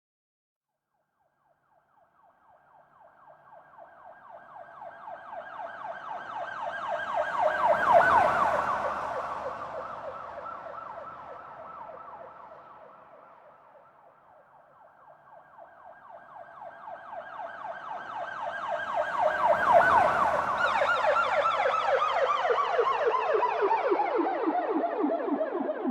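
Police car siren with a fast, rapid warble, passing by twice. It grows louder from about two seconds in to a peak about eight seconds in and fades away. It approaches again and peaks about twenty seconds in, then its pitch falls steadily as it moves off.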